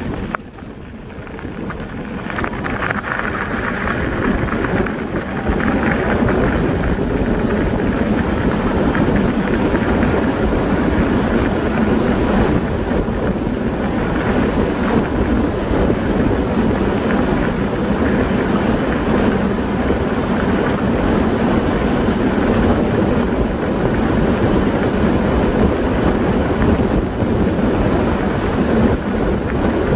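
Wind buffeting the microphone and tyres rolling over a gravel road on a moving e-bike: a steady rushing noise that builds over the first six seconds and then holds.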